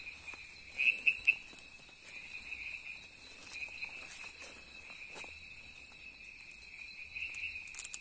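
Night-time chorus of crickets and other insects: a steady high trill, with three louder chirps close together about a second in.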